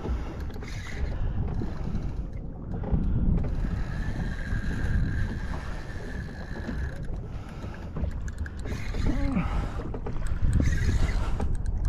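A fishing reel's drag gives line to a hooked fish pulling on 20 lb line, a steady whine for a few seconds about four seconds in, over constant wind and water noise.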